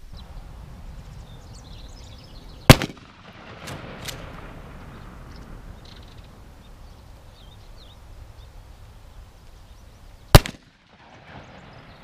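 Two 12-gauge shotgun shots about eight seconds apart, each one sudden loud report. The first is a short-barrelled Mossberg Shockwave pump gun and the second a full-length Mossberg 500, both firing number 4 lead birdshot. A couple of faint clicks follow the first shot.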